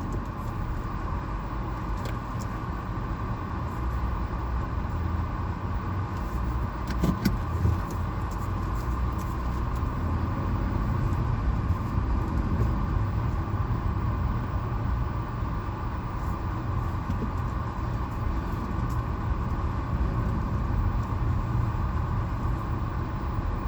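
Car running at low speed, heard from inside the cabin: a steady low rumble of engine and road noise, with a few faint light clicks.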